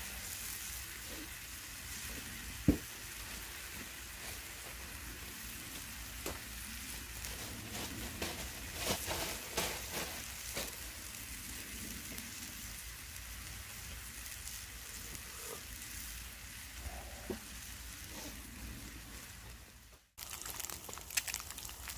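Food frying in a pan, a steady sizzling hiss with scattered spitting crackles, one sharp pop a few seconds in and a busier spell of crackling midway. It cuts out briefly near the end.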